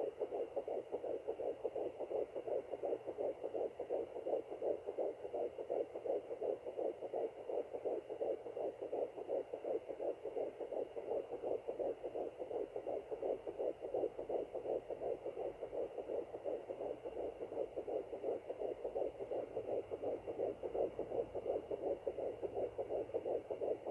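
Fetal heartbeat at about 10 weeks, picked up by a Doppler monitor as fast, steady whooshing pulses. The mother takes it for the heartbeat of a possible second twin.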